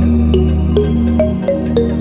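Background music: soft electronic new-age track with sustained bass notes and a regular pattern of light plucked notes.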